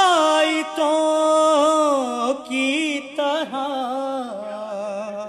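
A man chanting a devotional Urdu poem solo and unaccompanied, holding long notes with wavering ornaments; from about four seconds in the voice drops lower and fades.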